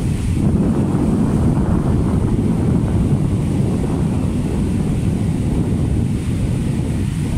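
Surf washing onto a sandy beach, heard through heavy wind buffeting the microphone as a loud, steady low rumble.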